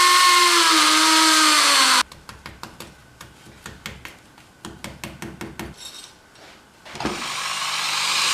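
A power drill runs for about two seconds, its whine dipping and rising under load, and then stops. A run of light clicks and taps follows, then a hissing motor sound builds near the end.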